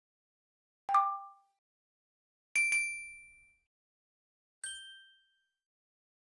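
Three short ding sound effects, each a click that rings out: the first low, the second highest and longest-ringing, the third in between, quieter and quick. They are pop-up chimes of the kind laid under animated on-screen 'Subscribe' and 'Share' prompts.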